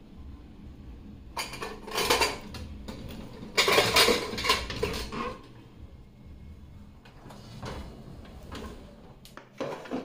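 Stainless steel dishes and lids clattering as they are handled in a dishwasher rack. There are two loud spells of clinking, about a second and a half in and around four seconds in, then lighter knocks and one sharper knock near the end.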